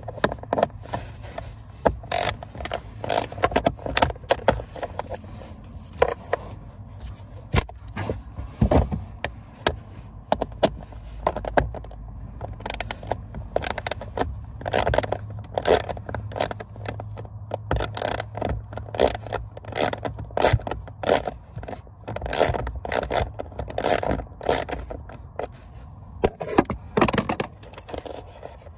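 Socket wrench ratcheting in quick runs of sharp clicks as an 8 mm bolt holding the blower motor is backed out, with a few handling knocks against the plastic housing.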